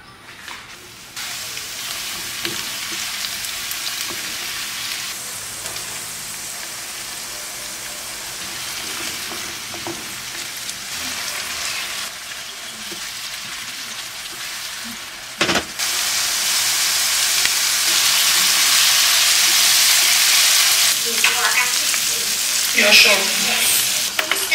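Food sizzling in hot canola oil in a pan, a steady hiss that starts about a second in. A sharp knock comes about two-thirds of the way through, and then the sizzling grows louder.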